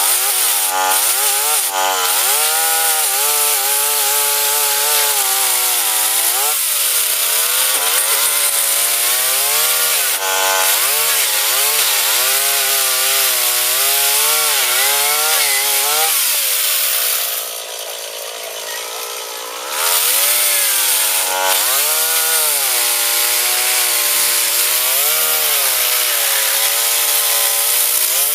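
Small engine of a motorized oil palm cutting machine running, revving up and down repeatedly. About two-thirds of the way through it drops back to a lower idle for about two seconds, then revs again.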